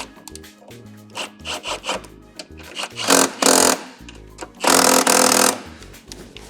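Socket ratchet clicking in several short runs, the longest two about 3 and 5 seconds in, as the brake caliper mounting bolts are run in. A music bed plays underneath.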